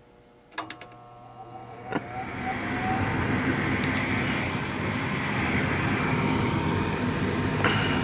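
Aire-Flo furnace starting up after its control is jumped into heat: a relay clicks about half a second in, with a few more clicks, then a motor hums and whines up to speed and settles into a steady rush of moving air.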